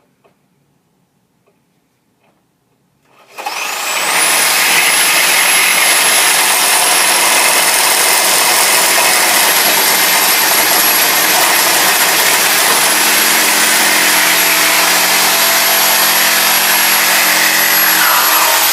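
Skilsaw 13-amp corded reciprocating saw starting about three seconds in and cutting through half-inch forged steel bar. It runs loud and steady, with a high motor whine that climbs as the saw spins up and then holds.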